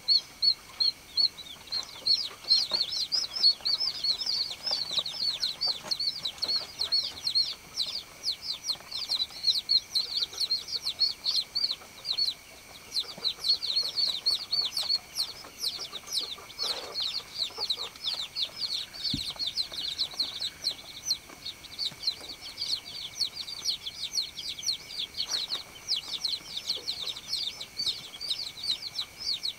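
A brood of baby chicks peeping nonstop: many short, high, falling chirps that overlap one another.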